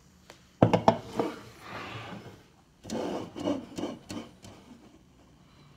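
Drink cans being set down and shifted on a wooden tabletop: two bursts of quick knocks and scraping, about half a second and about three seconds in.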